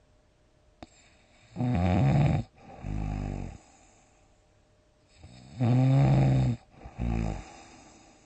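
A person snoring loudly: two rattling snores about four seconds apart, each followed about half a second later by a shorter, lower snore.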